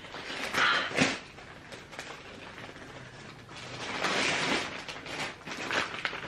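A shipping package being handled and opened: irregular rustling noises with a few sharp clicks, loudest about a second in and again around four seconds in.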